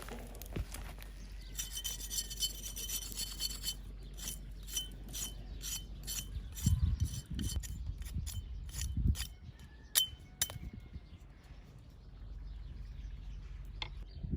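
Food-preparation handling sounds: a few seconds of rubbing and scraping, then a run of light clicks and taps with two low thumps midway.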